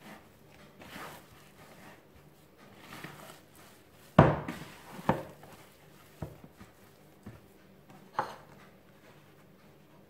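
Hands kneading soft yeast dough in a plastic bowl: soft squishing and rustling, then about five dull thumps roughly a second apart as the dough is pressed down into the bowl, the first of them the loudest.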